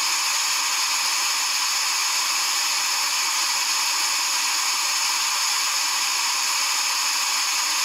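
Radio static: a steady hiss from an SDR receiver demodulating the 263.58 MHz FLTSATCOM UHF satellite channel while no one is transmitting on it.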